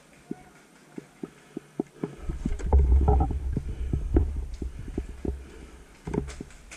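Footsteps of the camera wearer on the move, a steady thud about three times a second. A heavy low rumble of wind buffeting the microphone sets in about two seconds in and eases near the end.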